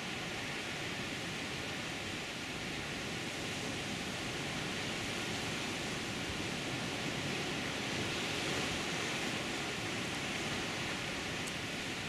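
Ocean surf breaking over dark lava rocks offshore and washing in toward a boulder-and-pebble beach, a steady wash of noise with no single wave standing out. Two faint ticks come near the end.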